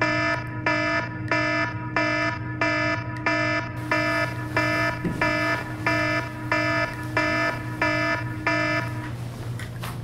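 Electronic wake-up alarm beeping about twice a second, each beep a bright chord of tones. It cuts off about nine seconds in as it is switched off.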